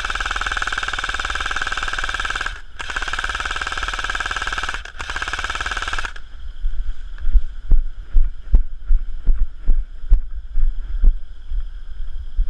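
G&P Stoner 63 electric airsoft machine gun firing on full auto in three bursts, two long and a short one, each a fast mechanical rattle. After the bursts come a string of irregular low, heavy thumps, louder than the firing.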